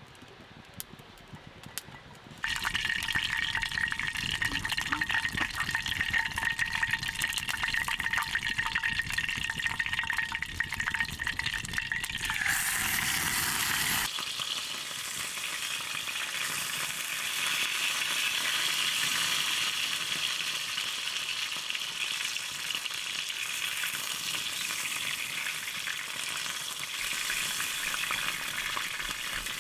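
Food frying in a hot pan: a dense crackling sizzle that starts suddenly about two seconds in, after a few quiet clicks, and changes its sound about halfway through.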